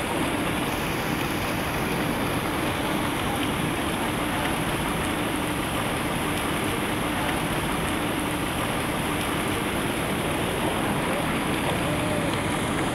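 Steady outdoor city-square ambience: a continuous even hiss of traffic and general street noise, with a faint low hum underneath.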